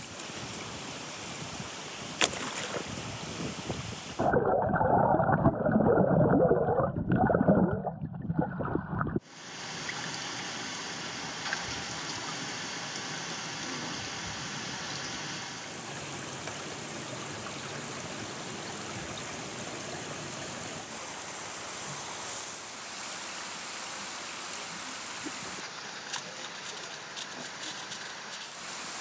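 Steady rush of flowing stream water. About four to nine seconds in there is a louder, muffled stretch of water sound, and near the end a few faint clicks.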